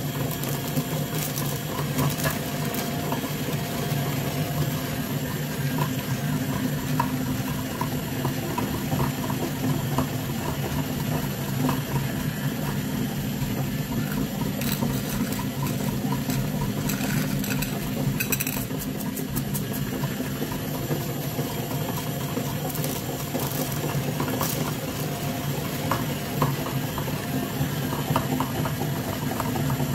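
Meat grinder running with a steady hum as its auger turns in the hopper, with scattered clicks, including a cluster of sharp ticks about halfway through as coated chocolate candies rattle.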